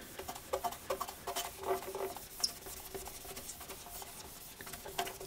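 Cloth rag with buffing compound being rubbed by hand over the lacquered wooden back of a hurdy-gurdy: faint, irregular rubbing strokes. This is the polishing stage that buffs a sanded dull spot back to a shine.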